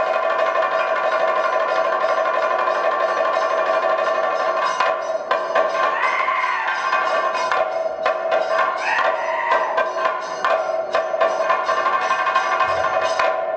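Live Kathakali accompaniment. A hand drum is beaten in quick strokes and cymbals ring over a steady held tone, and a singing voice comes in briefly twice.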